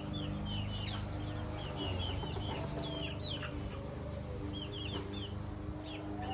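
Baby chicks peeping: many short, high chirps that come in little clusters, with a hen's low clucking and a steady low hum underneath.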